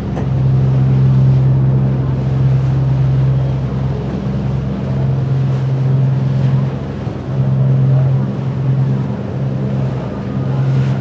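A boat engine running with a steady low drone that dips briefly a few times, over a hiss of wind and water.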